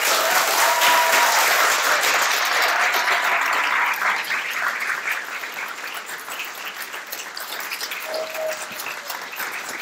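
Audience applauding at the end of a string quartet performance. The clapping is strongest for the first few seconds, then eases off.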